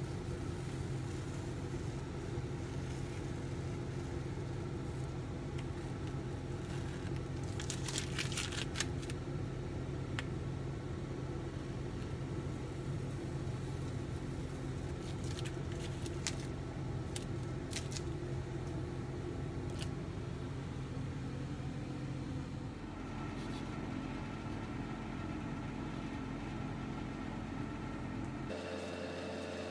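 A steady low machine hum, with a short burst of crackling about eight seconds in and a few single clicks after it; the hum changes character near the end.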